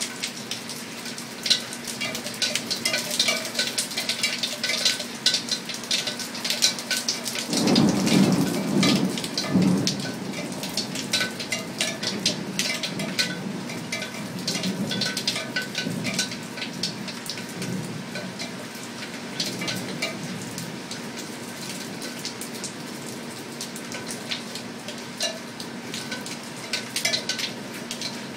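Steady rain with sharp close drips, and a roll of thunder that begins about seven and a half seconds in, is loudest for a couple of seconds, then rumbles on more weakly for about ten seconds more.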